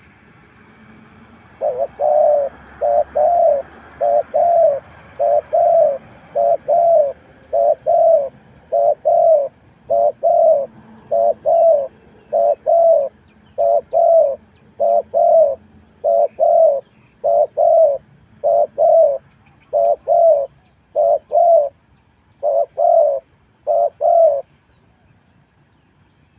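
Spotted dove cooing: a long, even series of about twenty double-note coos, roughly one a second, that stops a couple of seconds before the end.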